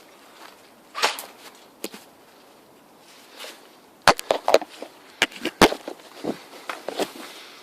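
Irregular sharp clicks and knocks: one about a second in, then a denser uneven run of them from about halfway through.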